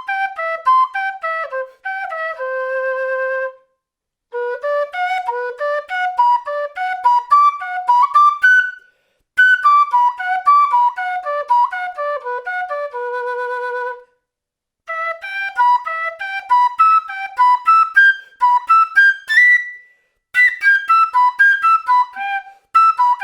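Quena, the Andean notched end-blown flute, playing arpeggio exercises: fast runs of single notes climbing and falling through the octaves, several phrases separated by short pauses. Some phrases end on a long held note with a slight wavering vibrato.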